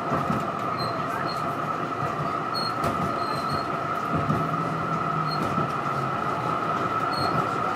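Melbourne tram in motion, heard from inside the car: a steady rumble from the wheels and track, with a continuous high-pitched whine over it.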